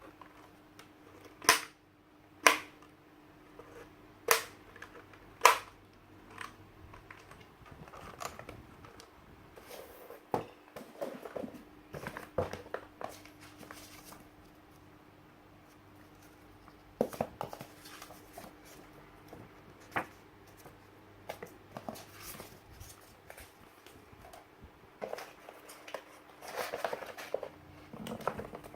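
Hands handling keyboard and keycap hardware. It opens with four sharp, loud clicks about a second apart, then turns into irregular softer clicks, taps and rustling, over a faint steady hum.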